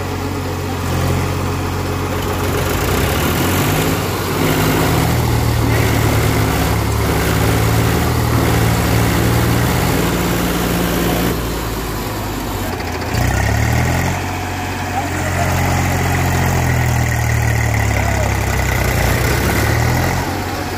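Diesel tractor engines revving and labouring under load, the nearest a Mahindra 265 DI straining to tow a tractor stuck in mud. Engine speed rises and falls several times, easing off about halfway through and picking up again.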